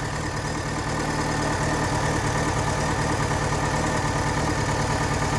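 2005 Volkswagen Gol Flex engine idling steadily, with a weak, rough-sounding note; the engine is shaking a lot at idle.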